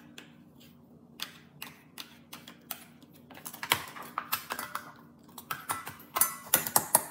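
A metal spoon tapping and scraping against a small plastic tray of wet dog food and a bowl as the food is scooped out: a string of sharp, irregular clicks, coming quicker and louder in the last second or so.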